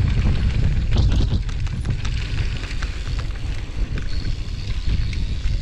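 Wind buffeting an action camera's microphone as a mountain bike rolls fast down a dirt trail, with tyre noise and the bike rattling and clattering over bumps, most of it about a second in.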